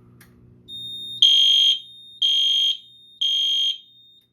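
Edwards Genesis multi-candela horn strobe sounding three loud half-second blasts about a second apart, the temporal code-3 pattern, as the fire alarm system goes into alarm on a key-tested pull station during a walk test. A fainter steady high beep runs beneath the blasts.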